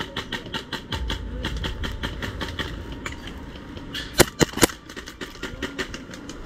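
Dry fallen leaves and twigs crackling and rustling as a person pushes through a dense bush, with three louder sharp cracks close together about four seconds in.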